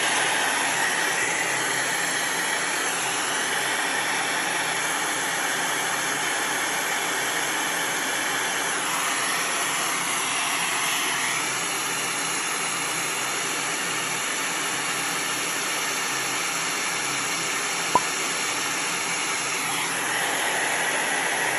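Steady rushing noise, spread evenly from low to high pitch, played back through an iPhone 14 Pro Max's speakers; it starts and stops abruptly, with a single sharp click near the end.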